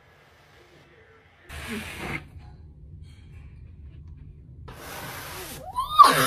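Near silence at first, then a few short breathy hisses, and near the end a woman's voice exclaiming, its pitch sweeping up and then down.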